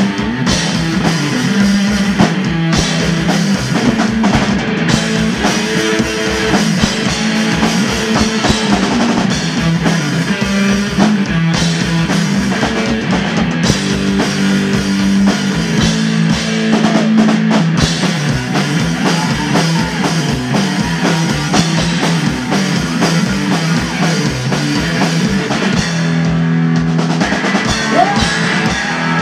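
A two-piece rock band playing live: an electric guitar and a drum kit played hard, loud throughout, with the drums keeping a fast, steady beat.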